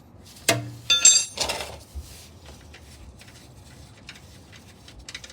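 Metal parts or hand tools clinking: a sharp knock about half a second in, then a couple of ringing metallic clinks, followed by a brief scraping rustle.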